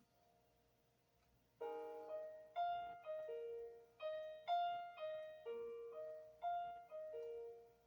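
Piano playing a slow song introduction: after a moment of near silence, single notes about two a second, each struck and dying away, with the last one fading out near the end.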